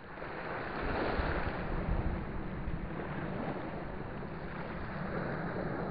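Steady rushing of wind and small waves washing onto a sandy beach, coming in suddenly at the start and holding level.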